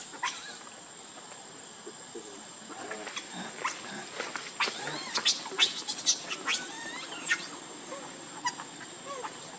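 Baby pigtail macaque crying with short, high squeals and squeaks, many in quick succession from about three seconds in.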